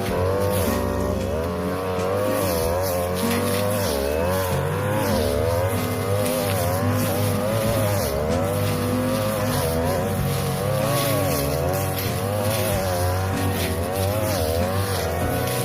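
42cc brush cutter engine running at high revs while its blade cuts tall grass, the pitch dipping and recovering again and again as the blade takes on load in the grass.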